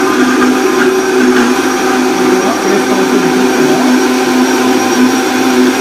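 Countertop blender motor running steadily at one pitch, grinding onions, cashews, tomato, coriander, mint and green chillies into a paste.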